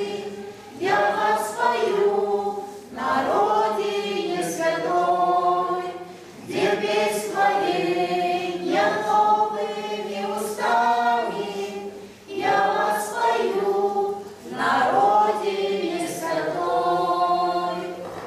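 Small mixed choir of older men's and women's voices singing a church hymn in phrases with short breaths between them, the last phrase ending near the close.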